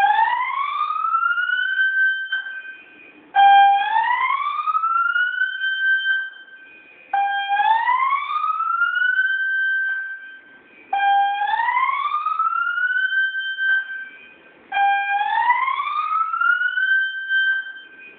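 High-rise building fire alarm sounding its evacuation tone: a repeating rising whoop. Each cycle starts on a short steady note, sweeps up over about two seconds, holds briefly, then cuts off. It comes round about every four seconds, about five times here.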